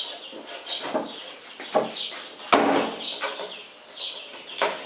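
Thin plywood case sections knocking and scraping together as a back panel is fitted on, with a sharp click of a metal catch near the end.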